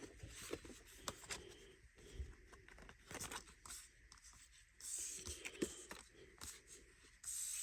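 Faint handling of cardboard art cards on a table: light taps and clicks as they are moved around, with a few short scraping slides.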